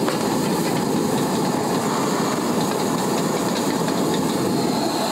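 Vegetables sizzling as they are stir-fried in a steel wok, over the steady rushing of a gas burner at full flame.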